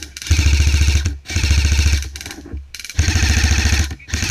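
Airsoft rifle firing full-auto: several bursts of about a second each, rapid even clicks of the shots over the hum of the gun's motor, with brief pauses between bursts.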